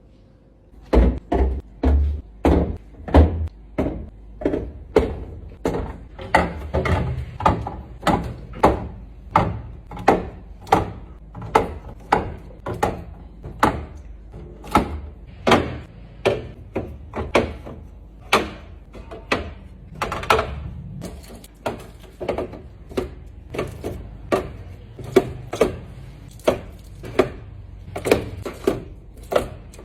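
Repeated knocks and clunks of containers, bottles and packages being set down and arranged on the shelves of a refrigerator, about one or two a second.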